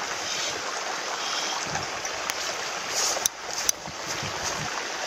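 Water running steadily into the pond: a steady hiss, with a few sharp clicks between about two and four seconds in.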